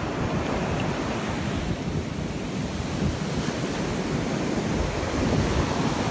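Ocean surf breaking and foaming up over the sand, a steady wash, with wind buffeting the microphone.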